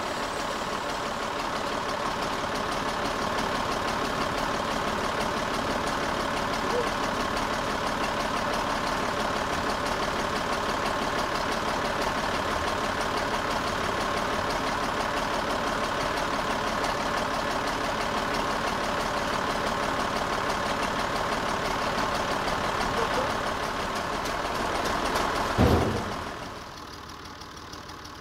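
Massey Ferguson MF135 tractor engine running steadily at idle. Near the end there is a single loud thump, after which the engine sounds quieter and farther off.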